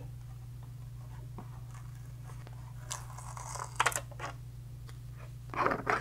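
Short plastic clicks and crackly scrapes from hands opening the cover and ribbon compartment of a Sharp CE-122 printer, in a few brief bursts about three, four and five and a half seconds in, over a steady low hum.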